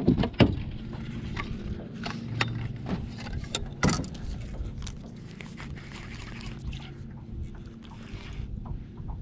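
Scattered knocks and clatter of handling on a bass boat's deck, with a sharp knock right at the start and a louder one about four seconds in, over a low steady drone.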